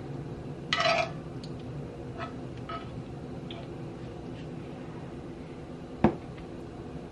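A metal spoon clinking and scraping as apple pie filling is scooped and dropped onto egg roll wrappers. There is a short clatter about a second in, a few light clicks, and a sharp knock about six seconds in, over a steady low hum.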